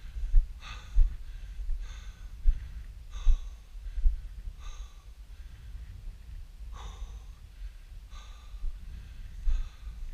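A person breathing hard, a short noisy breath every second or so, over a steady low rumble of wind on the microphone.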